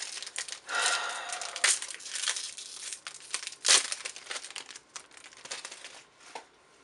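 Trading-card booster pack wrapper crinkling and being torn open, with two sharp rips, the second the loudest, then softer rustling as the cards are handled.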